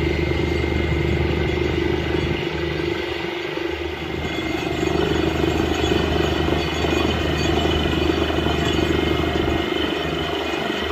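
Truck-mounted borewell drilling rig running while it drills: a loud, steady machine drone with a slight dip a few seconds in.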